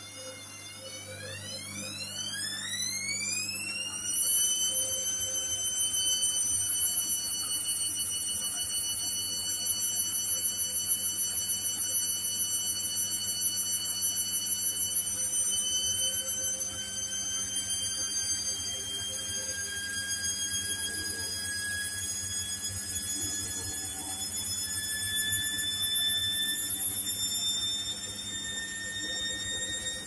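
Hoover H-Wash & Dry washer-dryer spinning up: the drum motor's whine rises in pitch over a few seconds as the spin speeds up, then holds as a steady high-pitched whine that creeps a little higher in the second half, over a low hum.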